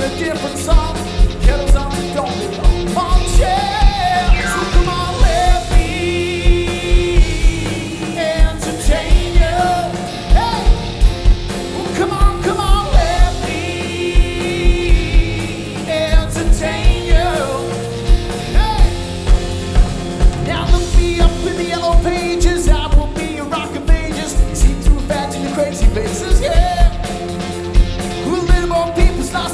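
Live band playing a 1990s rock song with singing over it and a steady, heavy kick-drum beat.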